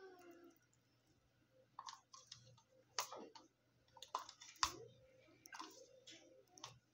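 Faint, irregular clicks and taps of a plastic paint cup being picked up and handled while green paint is flicked onto a canvas, with small wet squishy sounds between them.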